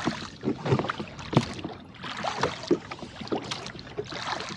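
A rowboat under oars: irregular splashes and knocks as the oars dip and pull through the water.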